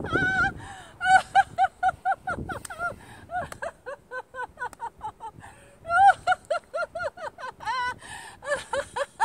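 A woman laughing hard and continuously in a laughter-yoga exercise. The laughter comes in rapid runs of high-pitched 'ha' syllables, about six a second, with short pauses between runs.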